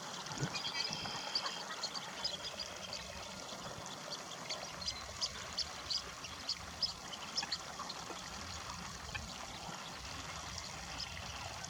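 Blue-winged teal feeding on the water: a soft, steady watery whirring with many short, high chirps scattered through it.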